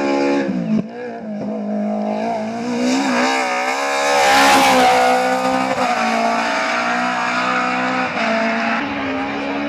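BMW M3 E30 rally car's four-cylinder engine at high revs, its pitch rising and falling as it accelerates and changes gear. The car passes close about four to five seconds in with a surge of engine and tyre noise, then the note steadies as it pulls away.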